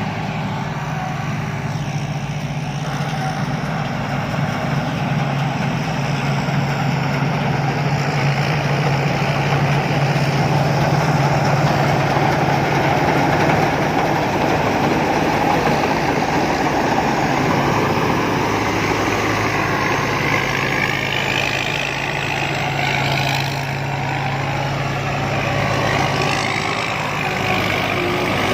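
Rice combine harvester running steadily: a continuous low engine hum with a broad rush of machinery noise above it.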